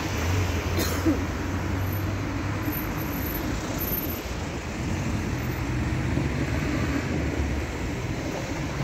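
Articulated tram running past on street track, a steady low hum and rumble mixed with the tyre noise of passing cars, with one short knock about a second in.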